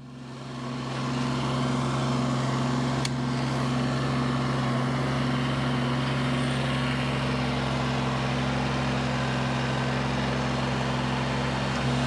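Tractor engine running at a steady speed.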